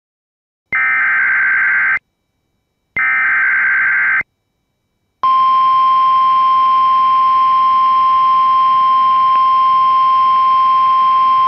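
Emergency Alert System activation: two bursts of SAME header data tones, a harsh buzzing screech each about a second long with a short gap between, then about five seconds in the steady single-pitch 1050 Hz weather-radio warning alarm tone begins and holds. It is the alert signal that opens a broadcast severe thunderstorm warning.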